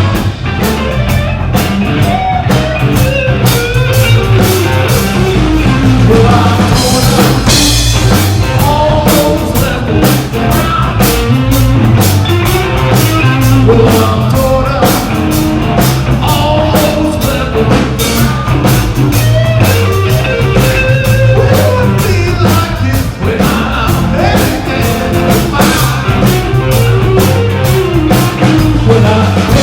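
A rock band playing live: drum kit keeping a steady beat with cymbals, guitar, and a singing voice.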